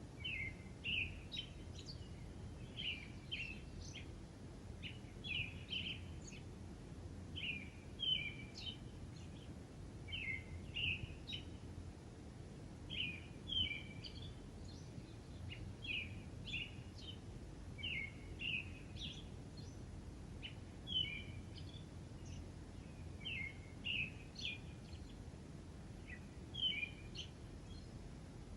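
Birdsong: short chirping phrases repeated about every two to three seconds, over a steady low background rumble.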